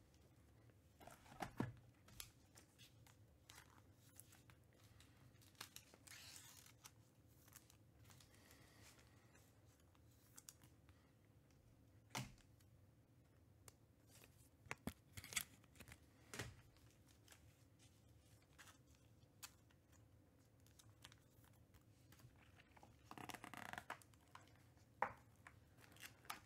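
Mostly near silence, broken by a few light knocks and handling sounds as a cardboard hobby box of trading cards is moved and set down. Near the end, a short scratchy rustle as fingers pick at the box's plastic shrink wrap.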